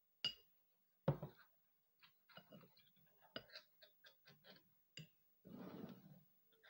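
A metal spoon clicking and scraping against a ceramic bowl while stirring flour, turmeric and warm milk into a paste. There is an irregular run of small ticks, two sharper knocks about a second in, and a short scrape near the end.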